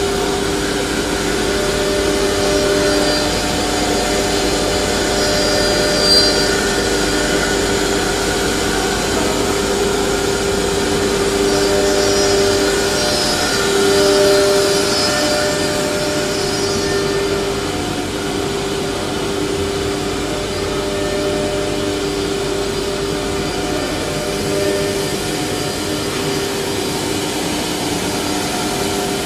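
Four-head CNC router running, its spindle routing a wood panel: a steady, loud machine whine over constant cutting and extraction noise.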